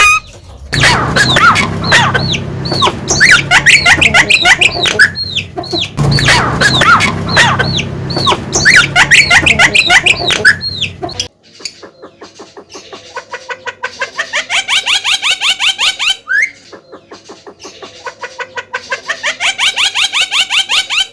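Javan myna singing hard: rapid chattering whistles and harsh notes, the same phrase heard twice. After that come two long rattling trills of clicks, each speeding up and rising in pitch.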